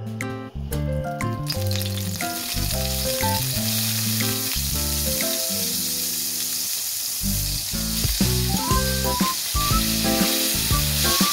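Butter melting in hot olive oil in a frying pan, sizzling steadily from about a second and a half in, with minced garlic frying in it near the end. A light plucked-note music track plays throughout.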